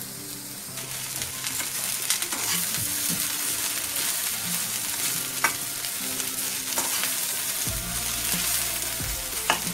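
Sliced okra frying in hot oil in a steel kadai, with a sizzle that picks up about a second in. A slotted steel spatula tosses and scrapes it, with a few sharp clinks against the pan.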